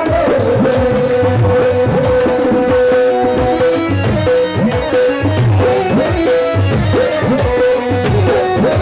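Live devotional folk music led by tabla, with gliding bass-drum strokes under a steady beat and a crisp high tick about twice a second. A held note runs for about four seconds and then continues in short pieces.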